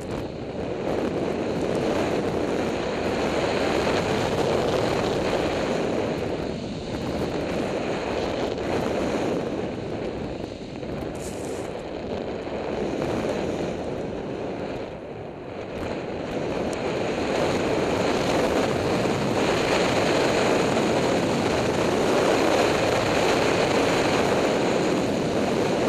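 Wind rushing over a head-mounted camera's microphone while riding fast down a powder slope, with snow hissing under the rider. The noise swells and eases in long waves with speed and is loudest near the end.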